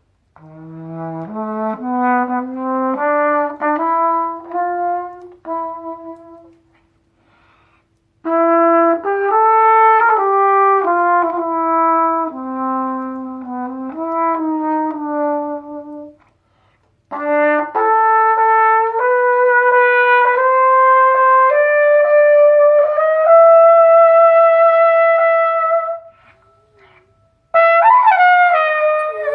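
Trumpet improvising a slow blues: three long phrases of stepped, held notes with short breaks between them, the last ending on a long held note. Near the end a new phrase starts with notes that bend and slide in pitch.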